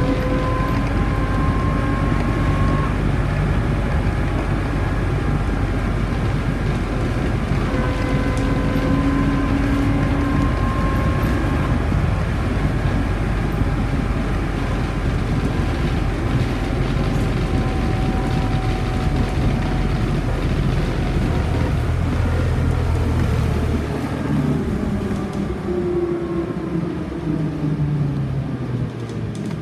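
Škoda 14Tr08/6 trolleybus running along the road, heard from the front of the passenger area: a steady road and running rumble with electric whines that drift in pitch as the speed changes. Near the end the deep rumble falls away and the whines slide downward as the trolleybus slows for a stop.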